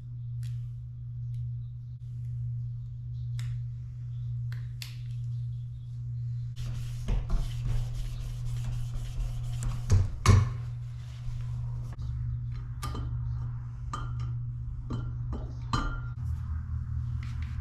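Scattered clinks and taps of metal and glass being handled, with some rubbing, over a steady low hum. The handling is sparse at first and turns busier after about six seconds, with two louder knocks about ten seconds in.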